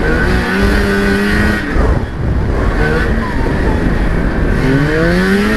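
1997 Lynx G-Type Enduro 500 snowmobile's two-stroke Rotax engine under way, its pitch rising and falling with the throttle, with a clear climb as it speeds up near the end.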